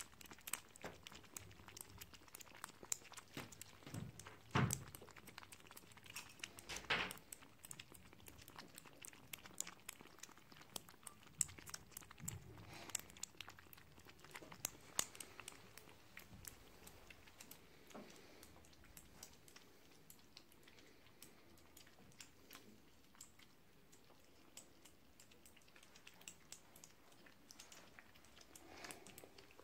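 Scottish Fold kittens lapping milk from a shared plate: a faint, busy patter of small wet clicks, with a few louder knocks.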